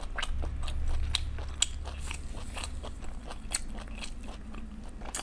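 Chewing of a mouthful of spicy braised pork large intestine, with irregular sharp clicks a few times a second.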